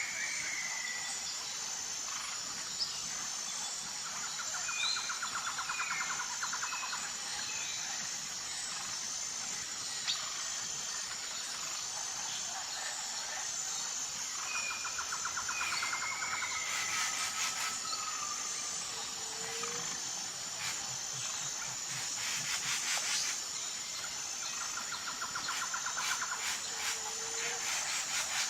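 Tropical forest ambience: a steady, high-pitched insect chorus with an even pulsing rhythm. Over it, birds give short gliding whistles and a repeated trill that comes back about every ten seconds, with brief rattling bursts midway.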